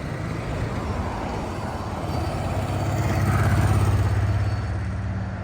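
A road vehicle driving past close by, over steady street traffic noise. Its low engine rumble swells to its loudest about three and a half seconds in, then fades.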